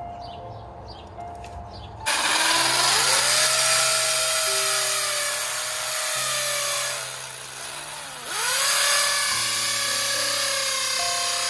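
Cordless drill running against an aluminium screen-frame post: its motor whine rises as it spins up about two seconds in, slows and drops around the middle, then picks up again and keeps running.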